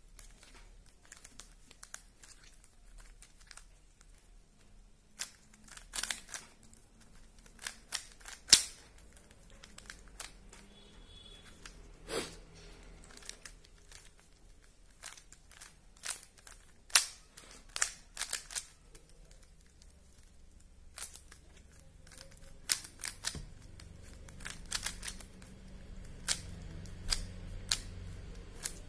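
Rubik's Cube faces being twisted by hand: irregular sharp plastic clicks and clacks as the layers turn, some in quick runs. A low hum rises in the background in the last third.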